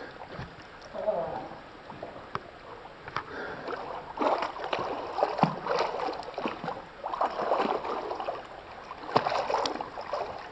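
Water splashing and sloshing in irregular bursts as a swimmer strokes through a pool, close to the microphone, with sharper splashes about five and nine seconds in.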